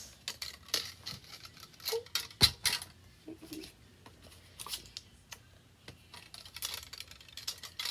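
Small plastic items being handled and put away: a run of scattered clicks and knocks, the loudest about two and a half seconds in.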